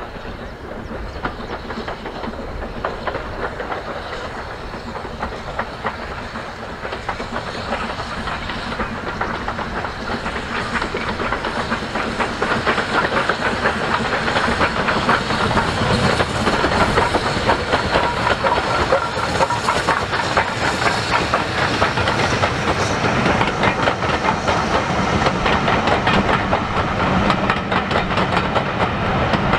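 BR Standard Class 9F 2-10-0 steam locomotive approaching and passing with a train of coaches, its exhaust chuffing and steam hissing, growing louder over the first dozen seconds or so. It gives way to the clickety-clack of the coaches' wheels over rail joints as they roll by.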